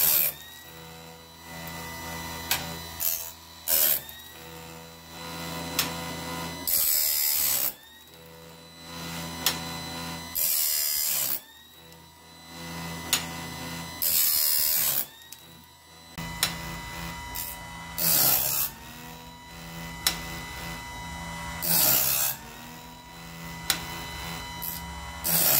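Chainsaw-chain sharpener grinder running in a homemade automatic bandsaw blade sharpener. Its motor whines steadily, and about every three and a half seconds the wheel grinds into a tooth gullet with a short harsh hiss, the whine dipping under load and climbing back up after each pass. Light clicks come between the grinds.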